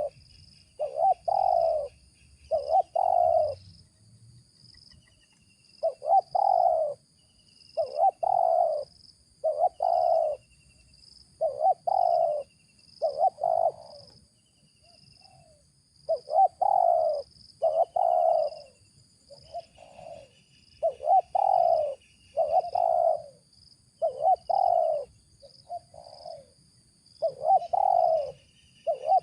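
Spotted dove (tekukur) cooing over and over in short phrases of a few notes with brief pauses between, in the deep, rough 'ngeruk' voice prized by dove-luring enthusiasts. Faint chirps of other small birds and a steady high insect buzz run underneath.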